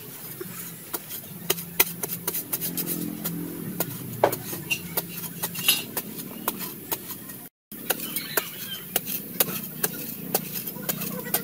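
Metal blade chopping and scraping into hard, dry soil: irregular sharp strikes several times a second, with a brief dropout just past the middle.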